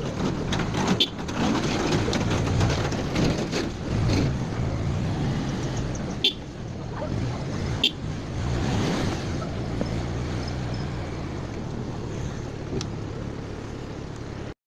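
Busy street noise of motor traffic and people in a crowded lane, with a few sharp clicks about six and eight seconds in. It cuts off abruptly just before the end.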